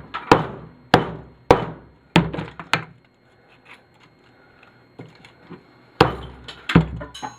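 Hammer blows on a CRT TV's deflection yoke, knocking the ferrite core off the copper windings. Five quick blows, a pause of about three seconds, then a few more near the end.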